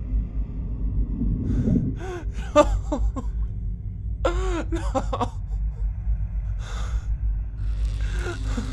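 A man crying in anguish: two bouts of wavering, sobbing wails a couple of seconds in, then gasping, breathy sobs near the end, over a low steady rumbling drone.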